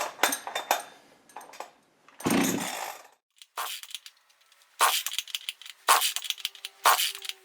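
Freshly built Jonsered CS2165 two-stroke chainsaw with a Husqvarna 372XPW cylinder being pull-started. There is one longer pull about two seconds in, then four short pulls about a second apart. Each turns the engine over with a quick run of clicks, and the engine does not settle into running.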